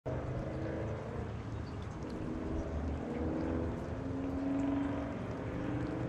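A motor engine droning steadily, its low hum slowly drifting up and down in pitch.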